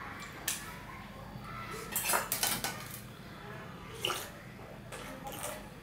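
A stainless steel plate clinking and scraping against a hard tabletop, with a cluster of metal knocks about two seconds in as it is handled and lifted. It is then tipped to the mouth and thin dal is slurped off its rim.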